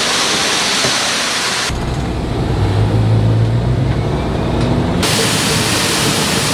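A short run of cut-together sounds. First a steady hiss, then a pickup truck running along a gravel lane heard from inside the cab, as a low steady hum. From about five seconds in, shelled corn pours from a grain truck's hopper through a pit grate with an even, rushing hiss.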